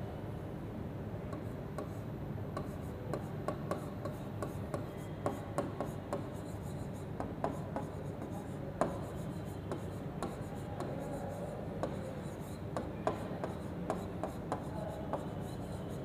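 Stylus writing on the glass face of an interactive touchscreen board: irregular small taps and short scratchy strokes as letters are written, over a steady low background noise.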